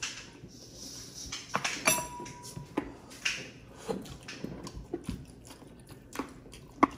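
Close-miked eating sounds of two people eating roast chicken with their fingers: irregular chewing, lip smacks and small clicks.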